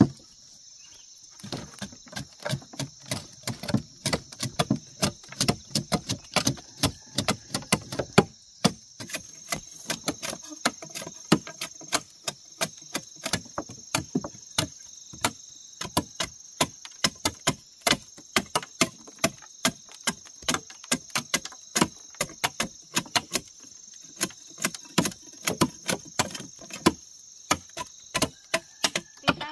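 Rapid, irregular sharp knocks, two or three a second, starting about a second in, over a steady high chirring of insects.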